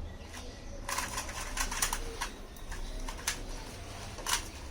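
A 3x3 Rubik's cube being turned by hand, its plastic layers clicking in quick runs of short clacks.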